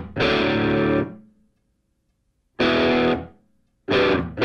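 Background music: distorted electric guitar playing stop-start chord stabs, with a pause of about a second and a half in the middle.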